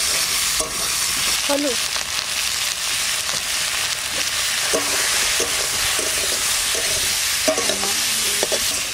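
Green tomato wedges sizzling in hot oil in a metal kadai, a steady frying hiss throughout. Now and then a metal spatula scrapes against the pan as they are stirred, most often in the second half.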